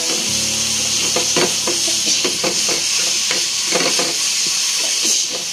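Masala paste frying in oil in a non-stick pan: a steady sizzle, with a spatula stirring and scraping it across the pan in quick repeated strokes.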